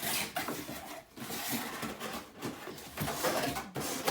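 Cardboard speaker box and packaging being handled and opened: irregular rustling and rubbing with short scrapes.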